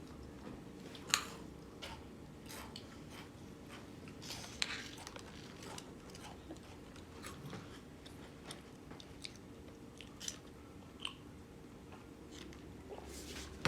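A child biting into and chewing crunchy strawberry-filled biscuits, with scattered sharp crunches.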